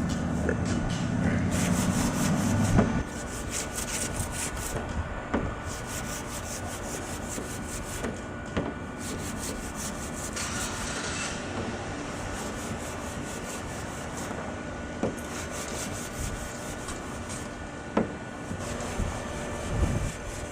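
A clay bar rubbed back and forth by hand over car paint, with a gritty scraping as it cuts through heavy protective-coating overspray. The strokes come in runs of a couple of seconds with short pauses between. A low rumble sits under the first few seconds.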